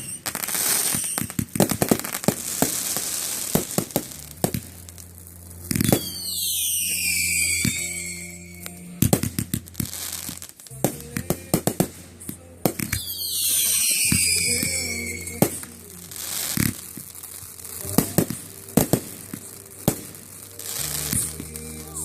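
Fireworks going off: a string of sharp cracks and pops, with two whistling fireworks whose whistles fall in pitch, one about six seconds in and another about thirteen seconds in. Music plays steadily underneath.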